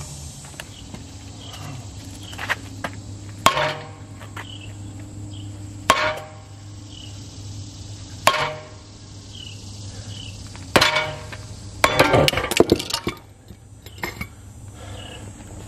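Hammer blows on the hub and brake rotor of a Dana 60 kingpin front axle, knocking the hub off the spindle. The metal rings after each strike. Four single blows come a couple of seconds apart, then a quick flurry near the end. The hub is stuck because the inner wheel bearing has seized on the spindle instead of coming off with the hub.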